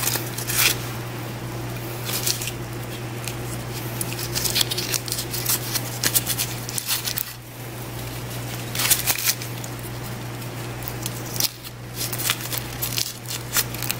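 Caldo de pollo bouillon cubes being unwrapped and crumbled into a pot of water: short crinkling rustles every couple of seconds, over a steady low hum.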